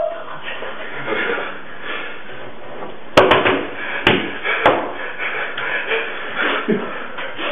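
Hands striking a wooden tabletop in quick sharp knocks, four of them between about three and five seconds in, two of them almost together, over a low hushed rustle.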